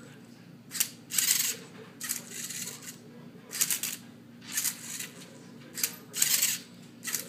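Rubik's Cube solving robot turning the cube's faces one move at a time: a short plastic clatter about once a second, over a steady low hum.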